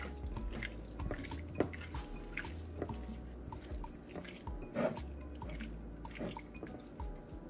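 Raw chicken pieces squeezed and turned by hand with dry seasoning in a ceramic bowl: soft, wet squelches and slaps at irregular intervals.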